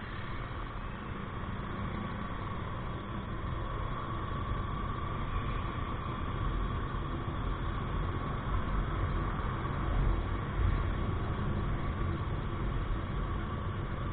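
Motorcycle being ridden along a road: the engine running steadily under wind and road noise on the microphone, with a thin steady whine. It grows a little louder about eight to eleven seconds in.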